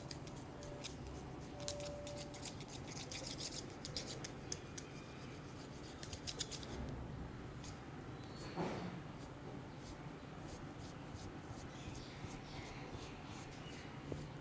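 Close-up ASMR trigger sounds at the ear: a dense run of rapid crisp clicks for about the first half, then sparser clicks, with a brief rubbing sweep about eight seconds in.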